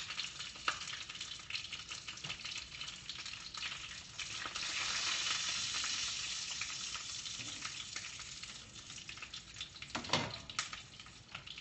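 Bacon frying in a pan: a steady sizzle with many small spattering pops, louder for a few seconds about halfway through. A couple of sharp clicks come near the end.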